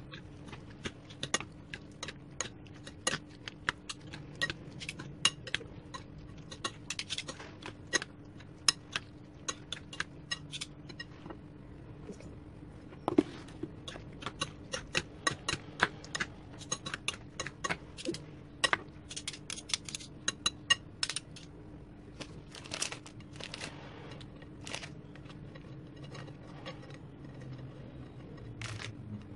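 Salad being stirred and mixed in a glass bowl, with quick irregular clinks and taps against the glass, several a second. The taps thin out in the last third, and a faint steady hum runs underneath.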